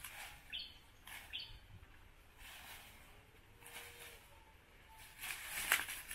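A small bird chirps twice, short high notes about half a second and a second and a half in, over the rustle and snap of sukuma wiki (kale) leaves being plucked by hand. The loudest rustle comes about five and a half seconds in.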